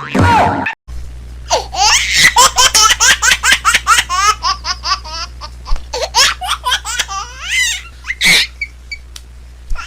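Long fit of high-pitched laughter in quick repeated bursts, starting about a second in and trailing off near the end, over a steady low hum.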